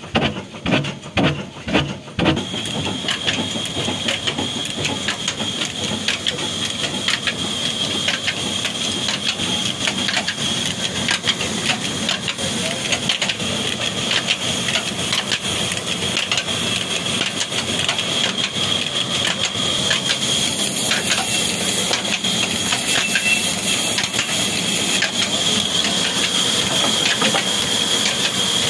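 Old black Ruston Hornsby-type stationary diesel engine running, with heavy exhaust beats about two a second for the first two seconds, then a steady mechanical clatter with a high whine as it turns a spoked flywheel pulley and a long flat drive belt.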